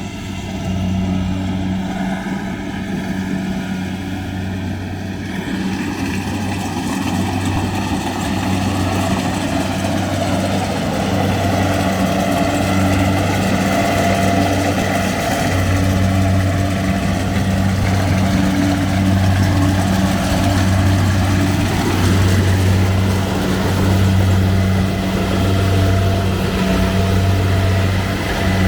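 Combine harvester's diesel engine running steadily under load, with a low hum that swells and fades about every second and a half.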